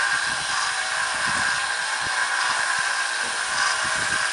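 Small 1x30 belt sander running with a steady whir while a sword blade is drawn slowly across its fine 2,000-grit belt to hone the edge.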